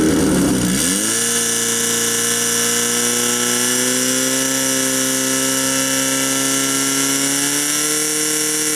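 A portable fire pump's engine revs up sharply about a second in, then holds steady at high revs, driving water through the hoses to the jets at the targets.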